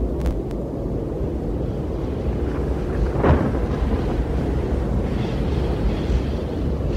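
Strong gusty wind buffeting the microphone: a steady low rumble, with a louder gust about three seconds in.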